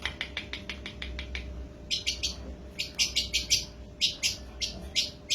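Albino long-tailed shrike calling: a quick run of short ticking chips, then louder harsh, scratchy chattering notes in rapid succession from about two seconds in.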